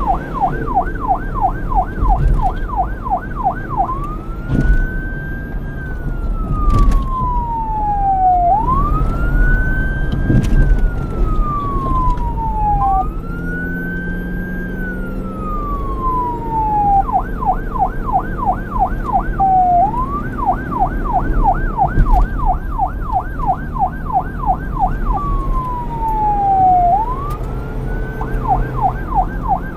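Electronic police siren switching between its fast yelp, at about three to four sweeps a second, and its slow wail, which rises quickly and falls over about three seconds. It changes mode several times: wail cycles from about 4 to 17 seconds in and again near the end, yelp otherwise. A low rumble runs underneath, with a few short knocks.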